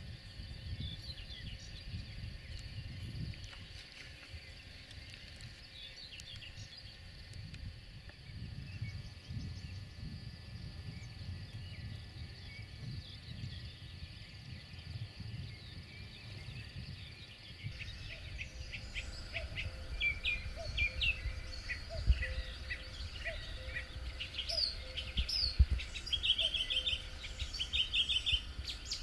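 Several birds chirping and singing in short repeated phrases, sparse at first and much busier in the second half, over a steady low rumble. Two brief knocks stand out near the end.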